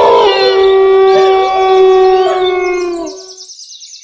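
A dog howling, one long note held for about three seconds and then trailing off, with other wavering howls above it. Thin high bird chirps come in near the end.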